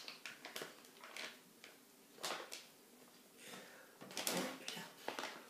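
Silicone spatula scraping soft shortbread dough around a glass mixing bowl and pushing it into a plastic piping bag: a series of short, irregular scrapes and rustles, the loudest about four seconds in.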